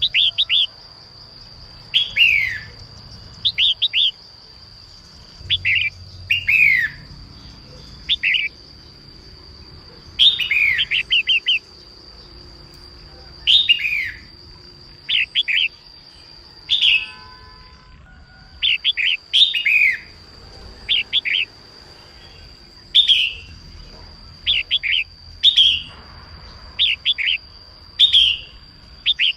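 A female red-whiskered bulbul singing in short, quick phrases of two to four notes, many falling in pitch, repeated every second or two. A steady high tone hums beneath the song, breaking off briefly about two-thirds of the way through.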